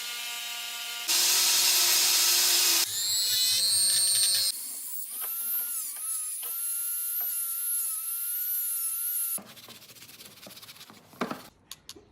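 Small electric power tool, like a rotary tool or drill, running with a high, steady motor whine, in several short edited takes at different pitches. Near the end the whine gives way to a few faint clicks and knocks of handling.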